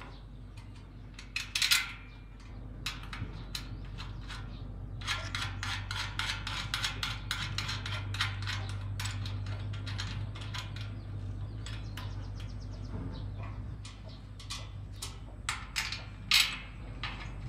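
Metal hand tools and parts clinking and tapping in quick irregular runs, with a few louder knocks, over a steady low hum.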